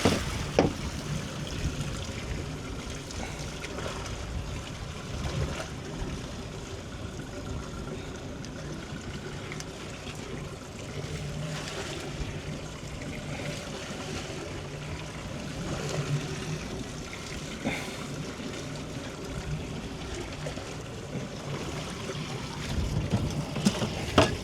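Water sloshing and trickling against the hull of a small fishing boat at sea, with a faint steady low hum and a few light knocks.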